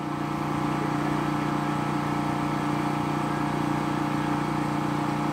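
Electric water pump motor running with a steady hum, still pumping while the rooftop barrels fill, before the bottle float switch cuts it off.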